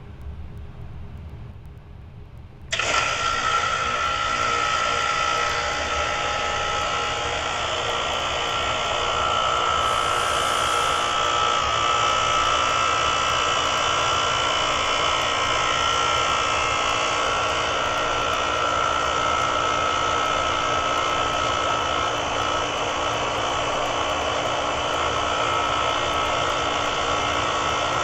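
2024 Carrier Sentry GH4SAN448 heat pump starting up in heat mode. A low hum lasts about three seconds, then a loud rushing noise with a steady high tone starts suddenly and keeps running. The owner calls this a loud, terrible startup noise from the compressor and wonders whether it is because the unit had never run in heat mode.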